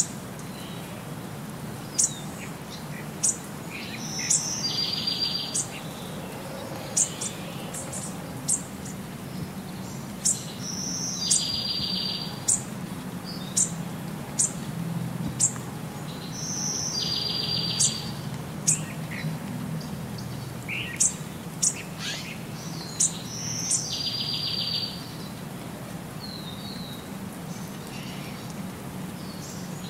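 Birds chirping and calling: sharp, high, short chirps, with the same trilled call coming back about every six seconds.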